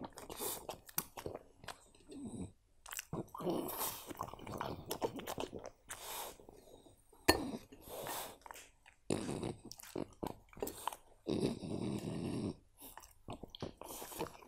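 French bulldog chewing food close to the microphone: wet, smacking chews and crunches in irregular bursts with short pauses, and a single sharp click about seven seconds in.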